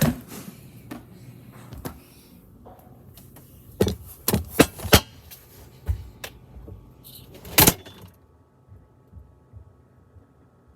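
A string of knocks and thuds, like a freezer door being handled and banged shut, the loudest near 8 seconds in. After that the sound goes muffled and only a faint low hum remains, as if heard from inside the shut freezer.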